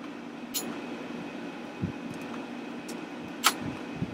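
Plastic clicks from a TI-84 graphing calculator's case halves being pressed together as their clips snap into place: a light click early on, a sharper, louder one about three and a half seconds in, and a couple of soft knocks, over a steady low hum.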